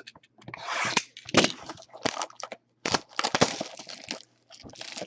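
Trading-card packaging being handled and opened: irregular crackling and crinkling with sharp little cracks.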